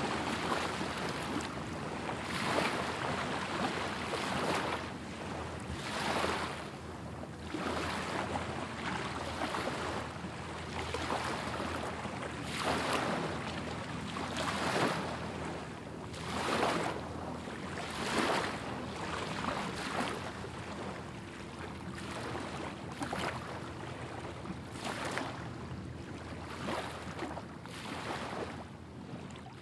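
Small lake waves lapping and washing onto a sandy shore, one soft wash every second or two.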